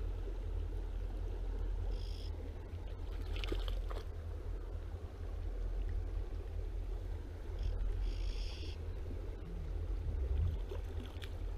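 Shallow river water flowing and rippling close by, over a steady low rumble. Two brief high-pitched sounds stand out, about two seconds in and again near eight seconds.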